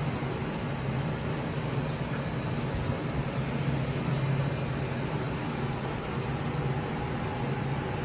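Steady low mechanical drone with a constant hum, unchanged throughout.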